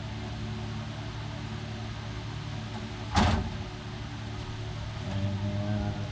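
A steady machine hum with a single loud clunk about three seconds in.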